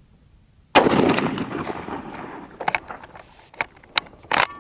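A single shot from a Springfield M1903 bolt-action rifle in .30-06, echoing and dying away over about a second and a half. Near the end come several sharp metallic clicks and clacks as the bolt is worked.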